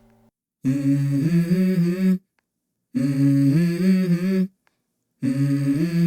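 Background music: a wordless hummed or sung vocal melody in three short phrases, with silent gaps between them.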